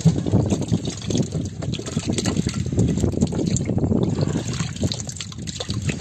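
Water splashing and dribbling as a hand scoops through a tub crowded with small live pothiya fish, in a continuous patter of small splashes.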